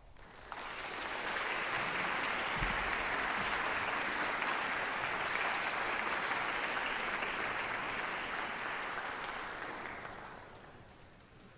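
Audience applauding: the clapping builds up within the first second, holds steady, then dies away over the last couple of seconds.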